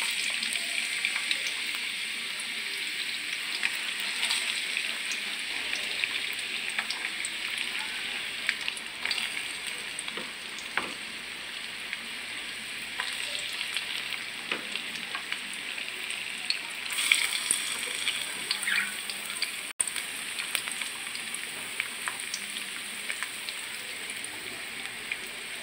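Chopped red onion and garlic sizzling in hot oil in a wok as they begin to sauté: a steady frying hiss with scattered small pops, crackling more loudly for a moment a little past the middle.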